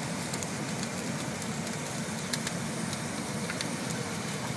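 Hot air balloon propane burner firing in one steady blast, a low rushing roar with hiss, into a burning pile of wooden pallets. Scattered sharp crackles come from the fire.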